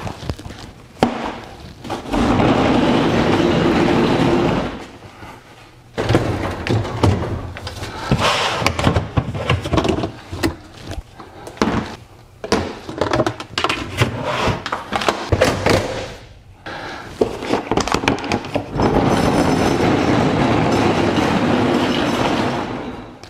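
Wheels of a rolling tool cart running across a garage floor in two stretches of a few seconds each, near the start and near the end. Between them comes a run of clatter and knocks as tools and a plastic storage bin are handled.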